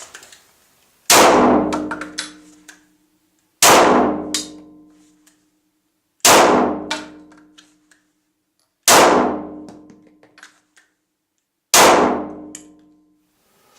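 Five 9 mm shots from a Glock 17 pistol, evenly spaced about two and a half seconds apart, each sharp crack followed by a long ringing tail.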